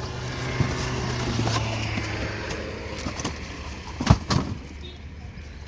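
A motor vehicle's engine hum that fades away after about two and a half seconds. Scattered light clicks, and one sharp knock about four seconds in.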